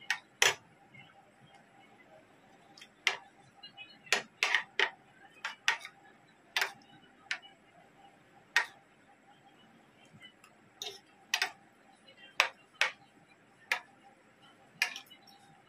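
Metal spoon and fork clinking and scraping against a ceramic plate while eating: sharp, irregular clinks, a few seconds apart at times, in quicker clusters at others.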